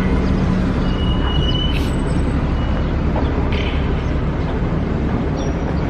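Steady low rumble of city background noise, with a thin high whistle-like tone lasting under a second about a second in and a few faint short chirps.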